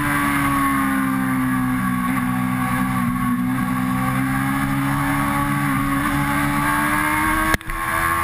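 Suzuki GSX-R sportbike's inline-four engine running at fairly steady high revs at speed, with wind and road noise over it. The sound breaks off for an instant near the end.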